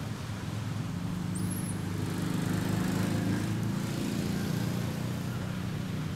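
An engine's steady low drone that swells to its loudest about three seconds in and then eases off.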